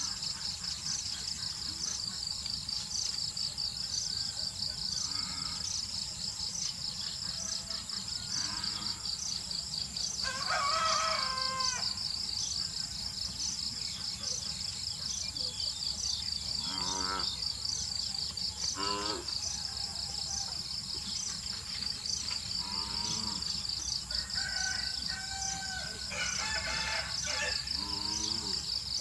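Rooster crowing a few times, the clearest crow about eleven seconds in and more near the end, over a steady high trill of insects. Several shorter bird calls come in between.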